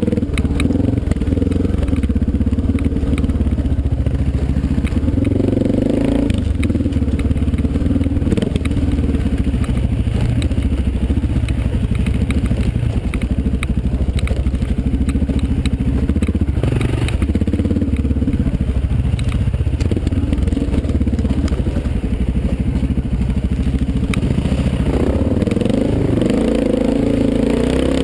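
Dirt bike engine running at changing throttle as it is ridden along a rough forest trail, heard from on the bike, with the pitch rising and falling several times near the end. Short knocks and rattles from the bike going over the bumpy ground are mixed in.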